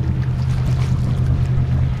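An engine running steadily with a low, even drone.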